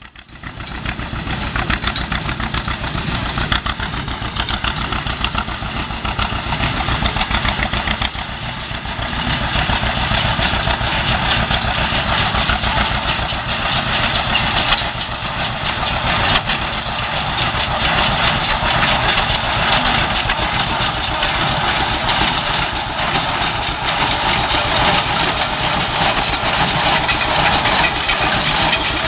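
A John Deere 60's two-cylinder tractor engine running steadily under load, pulling a John Deere 336 square baler, with the baler's machinery working along with it. The sound rises over the first second or two and then holds steady.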